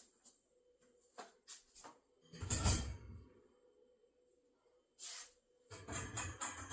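Parts of a clothing rack being handled and fitted together: a few light clicks, then a heavier bump with a low thud about two and a half seconds in, a short rustle, and more knocking and rubbing near the end.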